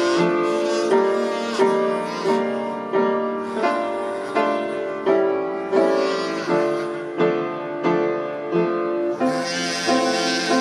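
Classical duet music: an accompaniment strikes chords on a steady pulse, each fading away. About nine seconds in, a kazoo's buzzy melody comes in over it.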